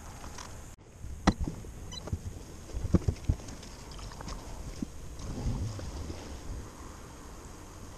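Handling noises as a plastic antifreeze jug and a bucket are moved about in the engine bay: a few sharp knocks, the loudest about a second in and around three seconds in, over a low steady rumble.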